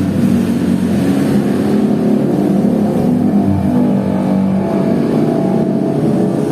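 A motor vehicle engine running steadily, with no change in pitch or level.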